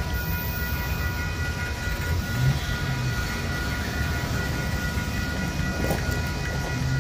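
A double-stack intermodal container train rolls steadily past, its well cars rumbling over the rails, with a few steady high-pitched tones ringing over the rumble.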